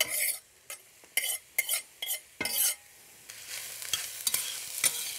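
Chopped onion, celery and carrot frying in hot olive oil in an enamelled cast-iron pot, stirred with a metal spoon. Short scrapes and clatters of the spoon come first, then a steady sizzle from about three seconds in, as the vegetables fry to soften.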